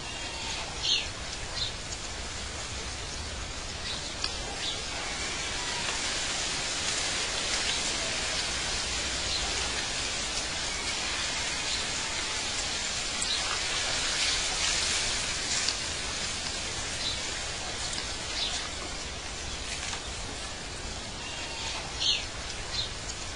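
Outdoor nature ambience: a steady rushing hiss with occasional short bird chirps, the loudest near the start and near the end.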